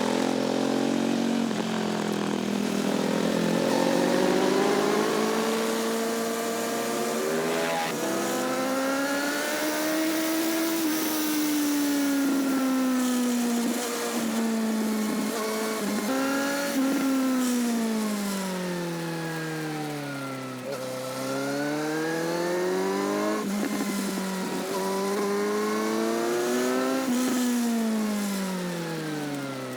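Sport motorcycle engine and exhaust, heard close at the rear of the bike, pulling hard and easing off several times. Its pitch climbs, drops back and climbs again, with short breaks where it steps between gears.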